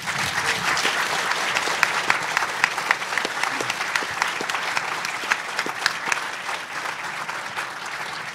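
Audience applauding, starting abruptly and easing off slightly near the end.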